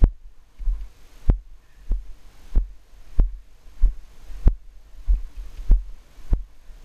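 A ridden horse's stride picked up by a helmet-mounted camera: a steady low thud about every two-thirds of a second as each stride jolts the rider, over a low wind rumble on the microphone.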